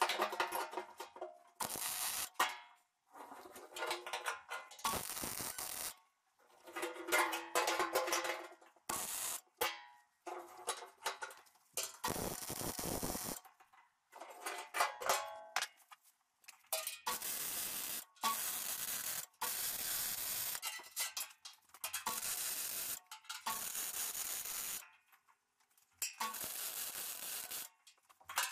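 MIG welding arc on steel square tubing, laying a rapid series of short welds: bursts of arc crackle a second or two long with brief pauses between them, some with a buzzing tone.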